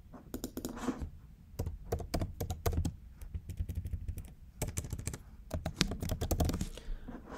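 Typing on a computer keyboard: two quick runs of keystrokes with a pause of about a second and a half in the middle.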